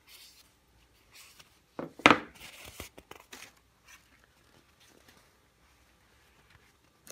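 Cloth rag crinkling and rubbing against the edges of a wooden fidget spinner, with a sharp knock about two seconds in, the loudest sound.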